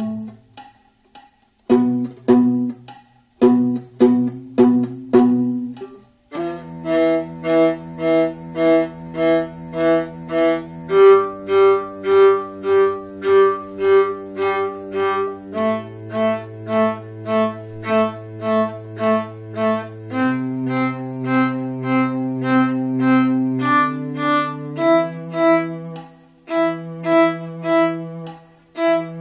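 Cello line played at half tempo by notation-software playback, doubled live on a viola an octave higher. It starts as short plucked pizzicato notes with rests between them, then about six seconds in turns to steady bowed notes repeated about twice a second, changing pitch every few seconds.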